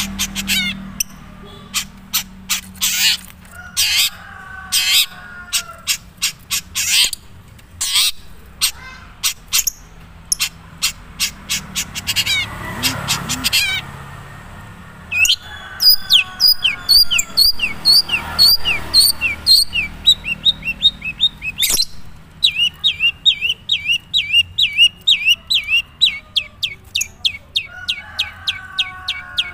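Long-tailed shrike (cendet, Madura strain) singing: sharp, high chirps and scratchy lower notes at first, then fast, evenly repeated high notes in the second half. It is a bird's own natural song, with little mimicry of other birds in it yet.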